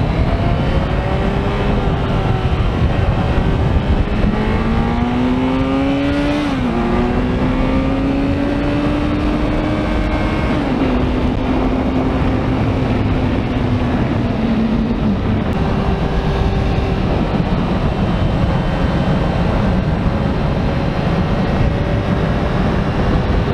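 Kawasaki Z900 motorcycle's inline-four engine running under way, pulling through the gears. Its pitch climbs and drops sharply at an upshift about six and a half seconds in, shifts again at around ten and a half seconds, then eases off after about fifteen seconds. From there a steady rush of wind and road noise is the main sound.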